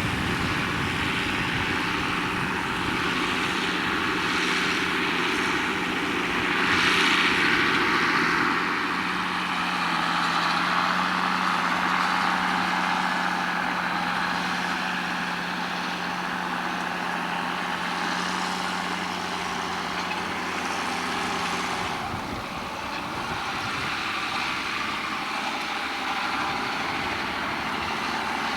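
Farm tractor engine running steadily under working load, with a broad mechanical noise that swells briefly about seven seconds in; the engine note changes about 22 seconds in.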